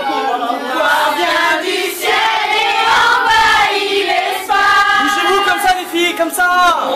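A small group of women singing together in chorus, with long held notes.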